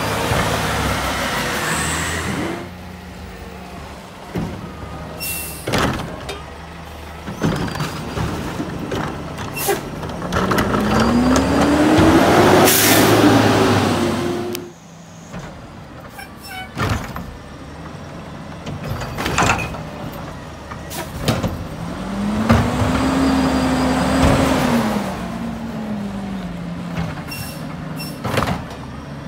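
Mack LR front-loader garbage truck with a natural-gas engine driving between stops. The engine revs up with a rising pitch as it pulls away and passes, about ten seconds in, then revs up and settles again about twenty-two seconds in as it pulls up to the next cart, with short air-brake hisses and knocks in between.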